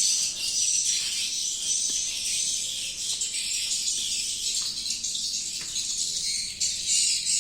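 Swiftlets twittering: a dense, steady, high-pitched chatter of many overlapping calls.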